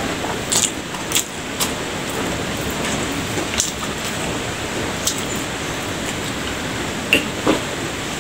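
A few short, sharp clicks and crackles from eating and handling a plastic water bottle, over a steady background hiss.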